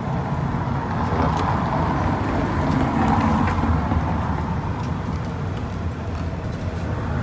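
Road traffic: a vehicle passing on the street, its noise swelling over the first few seconds and then easing off, over a steady low rumble.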